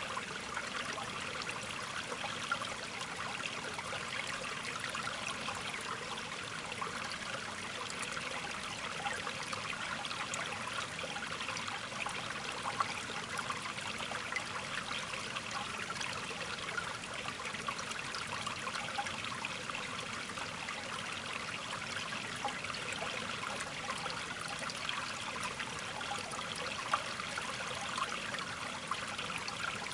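Steady trickle of running water, an even rushing with fine crackle throughout.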